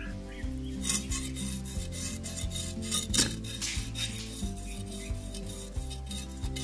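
Garfish scales being scraped off against the blade of an aruvamanai: a series of short, irregular rasping scrapes, over soft background music.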